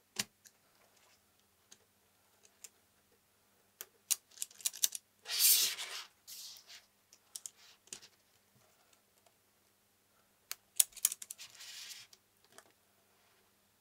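Plastic building-brick tank tracks and chassis being handled as the tracks are fitted around the road wheels and sprockets: scattered small plastic clicks and rattles, with a brief scraping swish about five seconds in and another near the end.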